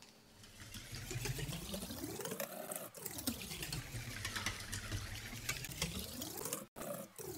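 Wire whisk beating tomato paste into broth in a stainless steel bowl: liquid sloshing with rapid clicking of the wires against the metal. The sound drops out for an instant near the end.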